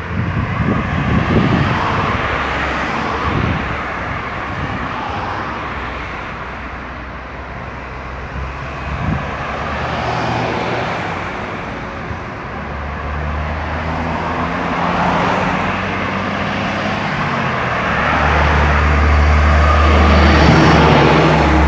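Road traffic on a highway: cars and other vehicles passing one after another, their tyre and engine noise rising and fading. A heavy vehicle's low engine drone builds and dominates near the end.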